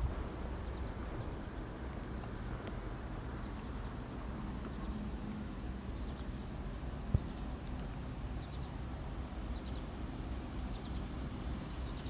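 Outdoor ambience: a steady low rumble with faint, scattered high bird chirps and a thin trill early on. A single sharp tap about seven seconds in.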